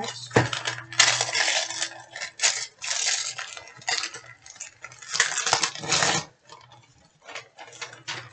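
Plastic wrapping and sticker packs being handled: irregular crinkling and rustling in short bursts, with a sharp tap about half a second in.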